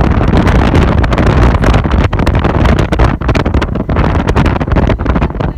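Loud wind buffeting the microphone: a deep, uneven rumble with irregular gusts.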